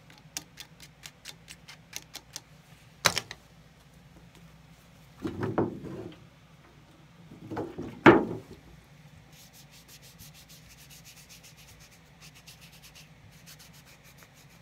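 Cloth rag rubbing hard over a shell cordovan leather shoe upper, scrubbing off caked old polish with acetone. It starts with quick short strokes, has two louder swishes of the rag about five and eight seconds in, then goes into a fast, fine scrubbing.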